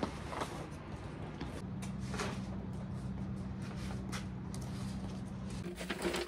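Light footsteps and a paper bag being handled, with scattered small clicks and rustles, over a steady low hum.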